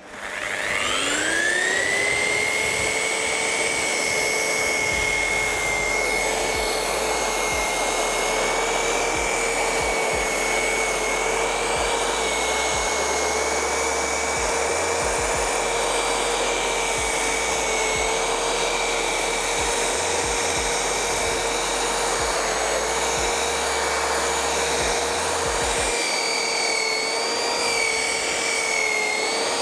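Evotools One Epto 18V cordless wet-dry vacuum spinning up, its whine rising in pitch over about two seconds, then running steadily at full speed. Near the end a higher, wavering whistle joins in.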